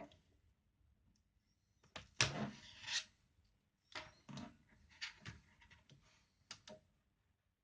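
Plastic screen bezel of a Dell Latitude 5480 laptop being pried off with a plastic card: irregular scraping and clicking as its snap-in clips let go, with a longer scrape about two seconds in.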